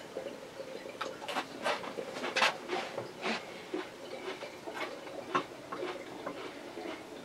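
Irregular light clicks and taps, about one or two a second, from hands handling a glass kombucha bottle.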